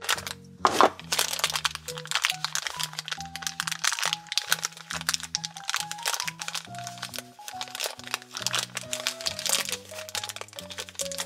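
Tissue paper crinkling and rustling as it is unwrapped by hand from a small plastic toy figure, with a louder crack shortly after the start. Light background music plays underneath.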